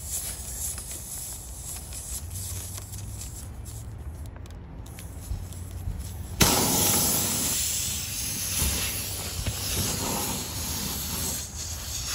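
A T-handle reamer worked in a tire's puncture hole with faint scraping and clicks, then, about six seconds in, a sudden loud hiss of air escaping from the tire through the reamed hole, easing off a little over the following seconds.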